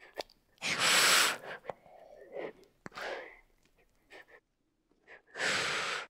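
Asian water monitor hissing: short, forceful breathy hisses, the loudest about a second in and another near the end, with fainter breaths between.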